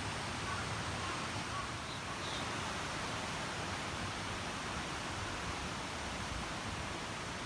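Steady, even rushing outdoor background noise, with a couple of faint short high chirps about two seconds in.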